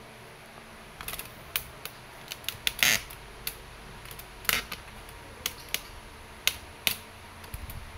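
Scattered light clicks and knocks of handling, as a tripod-mounted chronograph is set up for a velocity test, with one louder clunk about three seconds in.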